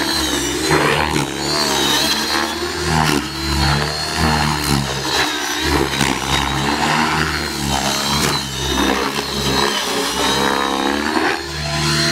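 Align T-Rex 600E electric RC helicopter in aerobatic flight: the motor and rotor whine rises and falls in pitch again and again as the helicopter manoeuvres.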